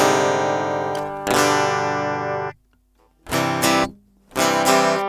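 Guitar chords strummed: two chords left to ring, a short pause about halfway, then three short, clipped chords.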